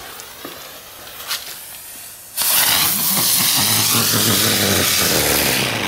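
Lesli ground spinner firework: the fuse sizzles for about two seconds, then the spinner ignites abruptly and runs with a loud, steady hiss of jetting sparks.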